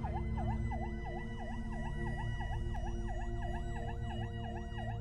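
Emergency vehicle siren sweeping rapidly up and down in pitch, about three cycles a second, over a steady low drone.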